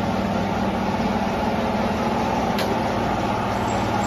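Steady drone of factory machinery running, with a constant low hum, and a single sharp click about two and a half seconds in.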